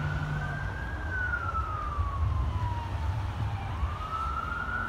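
Emergency vehicle siren in a slow wail: it rises, falls over a couple of seconds, then rises again near the end, over a steady low rumble.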